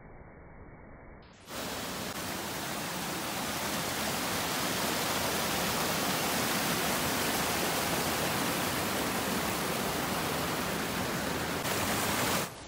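Mountain stream water rushing over rocks: a steady, even rush that starts abruptly about a second and a half in and cuts off just before the end. It follows a short, quieter, dull-sounding stretch.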